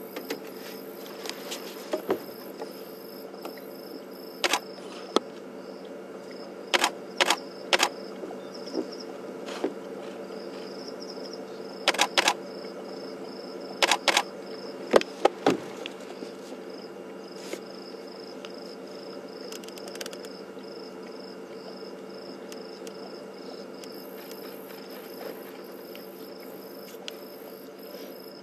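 Night insects chirping steadily in a pulsing high band over a low steady hum. About a dozen sharp clicks come singly or in quick twos and threes during the first half.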